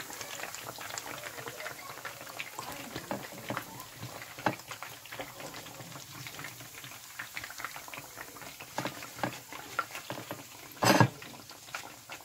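Chapli kebabs deep-frying in hot oil: a steady crackling sizzle with scattered sharp pops. A brief, much louder burst of noise comes near the end.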